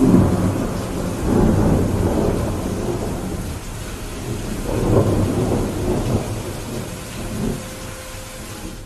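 Steady rain with rolling thunder: a rumble starts suddenly at the beginning and swells again several times.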